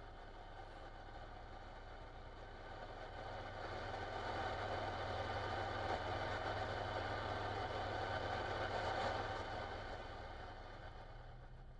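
A running engine hum, steady in pitch, that grows louder through the middle and eases off near the end.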